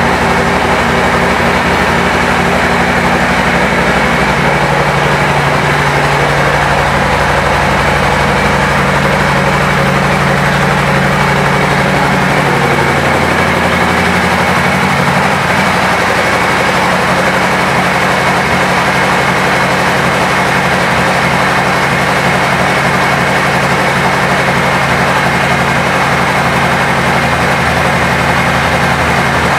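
Harley-Davidson Milwaukee-Eight 114 V-twin idling steadily through aftermarket Vance & Hines exhaust pipes, its tone shifting slightly about 13 seconds in.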